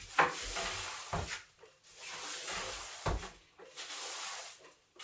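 Wide broom sweeping a floor: a run of swishing strokes, about one a second, some starting with a knock as the broom meets the floor.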